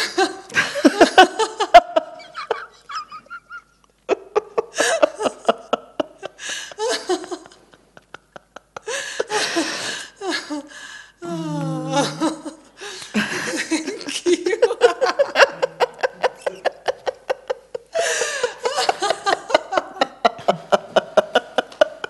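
Hearty, prolonged laughter coming in repeated fits of quick pulses with breathy gasps between them, with short lulls about three and eight seconds in.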